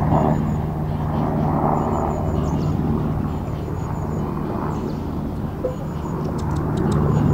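A steady low engine hum over open-air noise, with short high chirps in quick runs of three or four.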